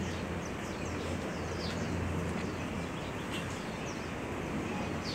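Small birds chirping again and again in short, quick, falling notes over a steady hiss of rain, with a faint low rumble underneath.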